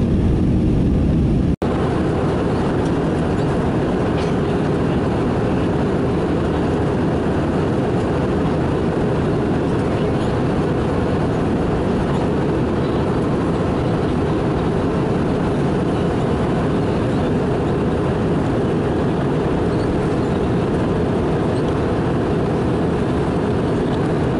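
Steady roar of jet engines and airflow inside the cabin of an Airbus A321 climbing after takeoff. The sound cuts out for an instant about a second and a half in.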